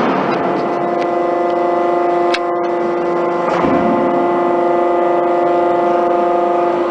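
Hydraulic drive of a Boldrini 300-ton dishing press and manipulator running with a steady hum of several tones. A sharp click comes about two and a half seconds in and a short rush of noise a second later.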